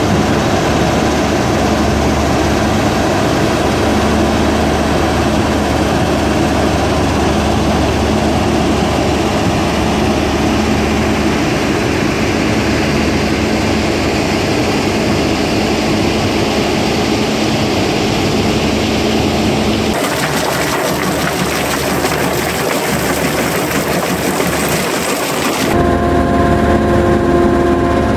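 Mobile stone crushing and screening plant running: steady, loud heavy machinery noise from the crushers, screener and conveyors carrying crushed stone. About 20 s in the deep low rumble drops out and the sound turns hissier. Near the end a steady whine comes in and it grows slightly louder.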